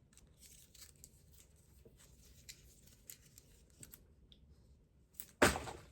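Faint rustling and small clicks of toy packaging being handled, then one loud thud near the end.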